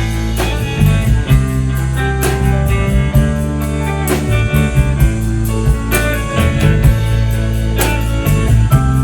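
A band plays an instrumental break between sung verses: guitar over bass and a drum kit, with no vocals.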